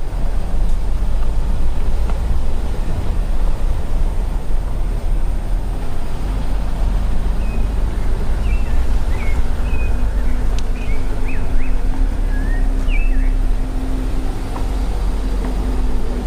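Car driving slowly on a rough, broken back road: steady low rumble of engine and tyres, with a steady hum joining about six seconds in. Birds chirp over it in the middle.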